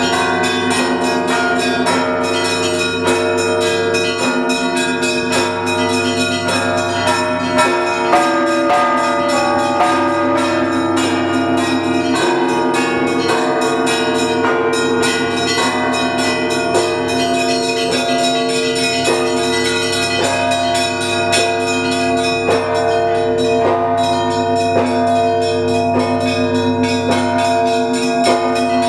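Russian Orthodox bell ringing from the Trinity-Sergius Lavra belfry, rung to call the faithful to the evening service. Many bells are struck in a fast, unbroken pattern, several strokes a second, over sustained deeper ringing tones.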